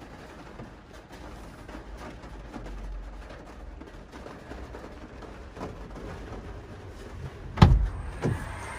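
Rain falling steadily on a van's windscreen and roof, heard from inside the cab. About seven and a half seconds in, the van door's latch clunks as the door is pulled open, with a second, smaller knock a moment later.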